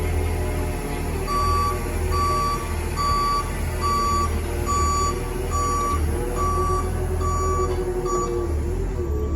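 Heavy-equipment travel/reversing alarm beeping at a steady pace, a little over one beep a second, about nine beeps, over the low hum of a running diesel engine. The beeps start about a second in and stop near the end.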